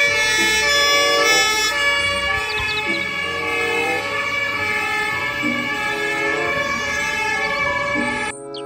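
Fire engine's emergency warning sounds: loud, steady horn-like tones held together, changing pitch a couple of times, then cutting off suddenly near the end.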